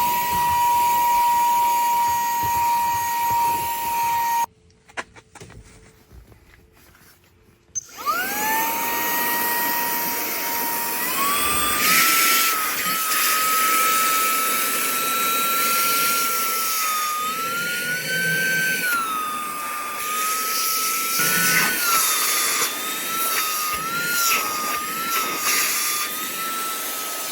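Cordless handheld vacuum's brushless motor running with a high whine and rushing air. It cuts off about four seconds in and is quiet for a few seconds. It then spins back up, steps up to a higher pitch a few seconds later, and its pitch wavers up and down from then on.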